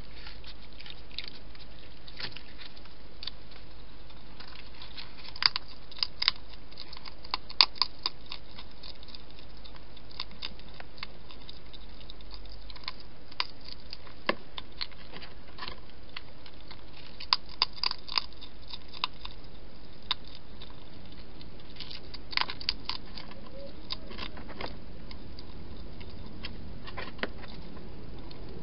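Hedgehog crunching food from a bowl inside a plastic feeding box: clusters of sharp crunches, several seconds apart, over a steady hiss.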